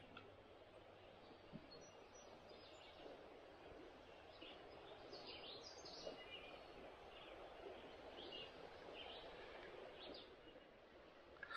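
Near silence: a faint steady outdoor hiss with scattered faint bird chirps.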